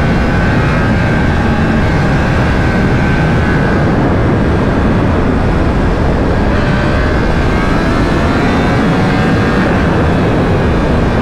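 Loud, steady wind rush over a riding helmet at track speed, with a Yamaha R1's crossplane inline-four engine running under it. The engine note climbs slowly in pitch in the second half.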